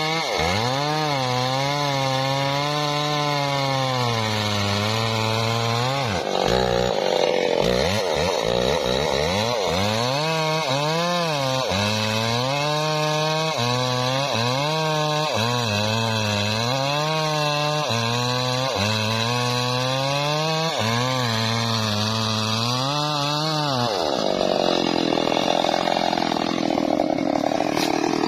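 Stihl chainsaw cutting into a teak trunk, its two-stroke engine note repeatedly dipping and recovering as the chain loads up in the cut. About 24 seconds in, the clear engine note gives way to a rougher, noisier sound.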